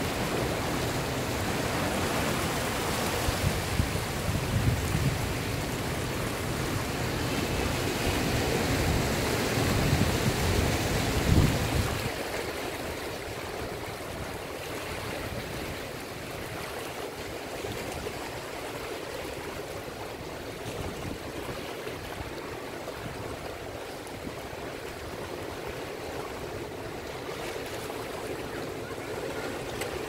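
Ocean surf surging and washing through a channel between coastal rocks: a steady rush of churning, foaming water. A heavy low rumble swells under it for the first twelve seconds, then drops away suddenly, leaving the lighter hiss of the surf.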